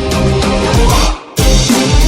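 Loud DJ music with a steady, heavy bass beat. It cuts out for a moment just after a second in, then comes straight back in.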